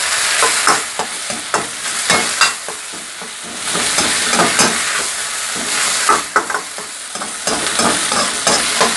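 Kimchi fried rice with pork belly sizzling in an iron wok, with a steady hiss. It is stir-fried with a spatula that scrapes and knocks against the pan many times at an irregular pace.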